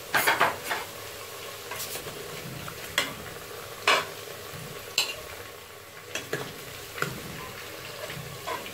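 Fried potato pieces sizzling in hot oil in a pressure cooker, with a spoon knocking and scraping against the pot about once a second as the potatoes are lifted out.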